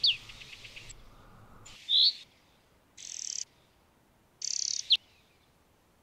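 European greenfinch singing: a quick run of about five falling notes that trails off into a faint twitter, then single high notes and short bursts separated by silent gaps.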